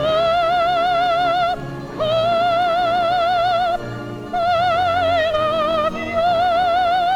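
Operatic soprano singing long held high notes with steady vibrato, four notes separated by brief pauses, over a faint low accompaniment.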